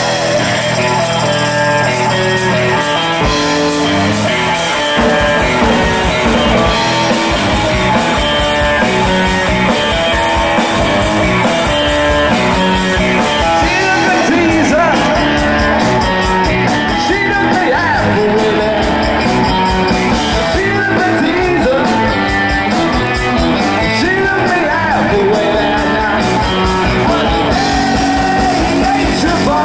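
Live rock band playing: electric guitar, bass guitar, drum kit and congas, with a singer over a steady beat.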